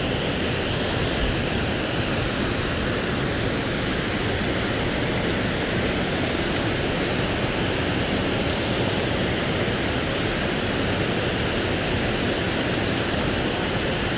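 Steady rush of a waterfall and the river rapids below it: an even noise of falling water that holds the same level throughout.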